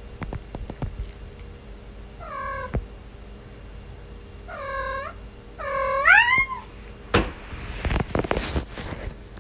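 Kitten meowing three times: two short meows, then a longer one that rises in pitch at its end. Scattered short knocks and taps come before and after.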